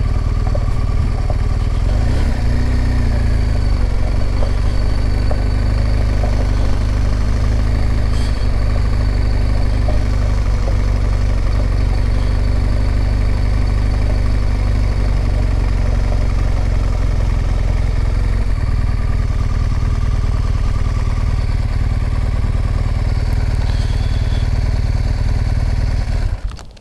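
2016 BMW R1200GS Adventure's liquid-cooled boxer-twin engine running steadily at low revs as the motorcycle rolls slowly. It is heard through a microphone on the rider's helmet chin bar. The engine is switched off near the end, and the sound cuts off suddenly.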